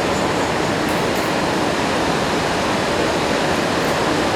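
Steady rush of the Niagara River's whitewater rapids, an even noise with no breaks.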